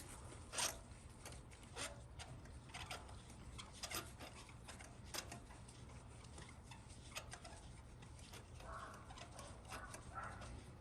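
Faint, irregular metallic clicks, about one a second, with a little soft rubbing near the end, as a spark plug is turned into the 1UR-FE V8's cylinder head by hand on a magnetic socket and long extension.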